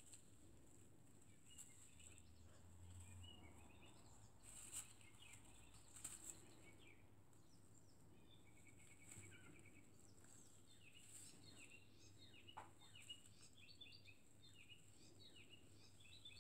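Near silence, with faint high chirps, many of them falling in pitch and coming thicker in the second half, and a few soft ticks.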